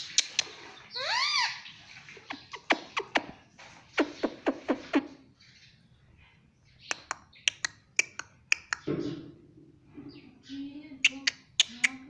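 Indian ringneck parakeet making runs of sharp clicks in quick clusters, with one short call that rises and falls in pitch about a second in.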